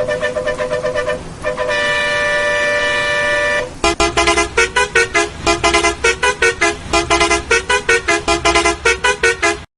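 Bus horn sound effect played in edited variations. It starts with a fluttering horn tone, then a long held horn blast of about two seconds, then fast, rhythmic chopped honks at about four or five a second, cutting off suddenly near the end.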